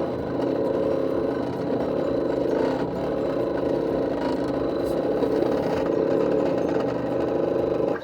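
Xhorse Condor XC Mini key cutting machine running its motors while it decodes a key: a steady, loud motor whine made of several pitched tones, which cuts off near the end.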